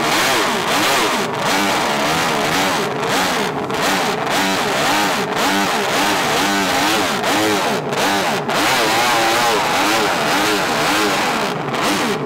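Honda RC166's 250 cc six-cylinder four-stroke racing engine revved hard on the spot, its pitch rising and falling over and over with each blip of the throttle, the note of six open exhausts.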